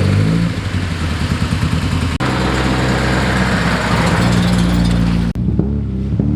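Car engine running at a fairly steady pitch, cut off abruptly and resuming twice, about two seconds in and again near the end.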